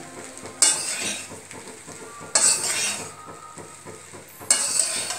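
A metal spoon stirring and scraping fried rice and vegetables in a steel pan, as the rice is mixed into the vegetables. Three sharp scrapes, each with a short hiss of sizzling, come about two seconds apart over a low clatter of stirring.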